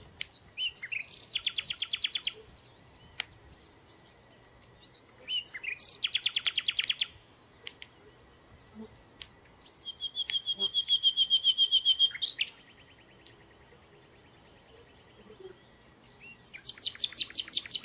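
A songbird singing in separate phrases, each a fast run of repeated high notes; the third, about ten seconds in, is a long even trill.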